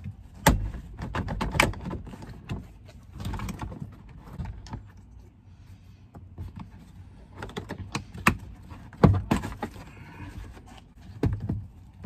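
Plastic interior trim clips of a 2004 Toyota Sienna's cargo-area panel popping loose while the panel is pried and pulled up by hand: a series of sharp clicks and knocks, loudest about half a second in and again around nine seconds in.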